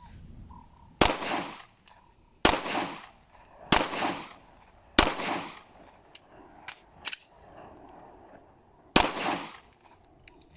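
Five handgun shots, each with a short echoing tail. Four come about one and a quarter seconds apart. Then comes a pause of about four seconds with a few faint clicks, the tap-rack immediate-action drill clearing a stoppage, and the fifth shot follows near the end.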